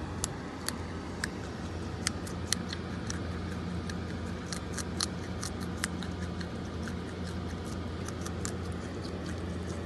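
Groundhog chewing a carrot close up: many crisp, irregular crunches, thickest through the middle, over a steady low hum.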